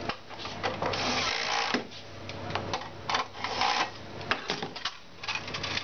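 Cordless drill-driver running for a couple of seconds to fix trunking to the board, followed by scattered clicks and knocks of plastic trunking pieces being fitted.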